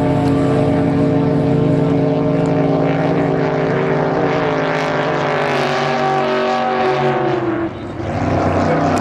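Racing drag boat engines running at full throttle on a pass: a loud, steady engine drone whose pitch falls away about five to seven seconds in, with a brief dip in loudness near the end.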